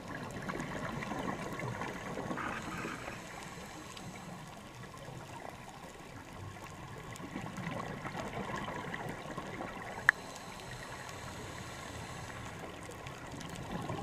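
Underwater sound heard through a dive camera's housing: a gurgling wash of a scuba diver's exhaled bubbles, swelling twice, with one sharp click about ten seconds in.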